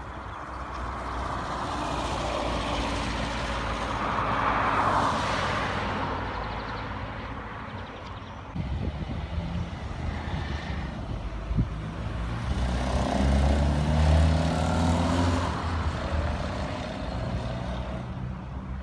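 Road vehicles passing one after another: one swells and fades about five seconds in, then a heavier engine with a low hum passes about fourteen seconds in.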